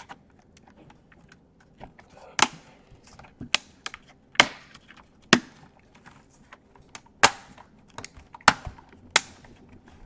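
Lenovo IdeaPad 100 laptop keyboard being pressed down into its frame: a series of sharp plastic snaps and clicks, about seven loud ones at irregular spacing with fainter ticks between, as the keyboard is seated in the palmrest.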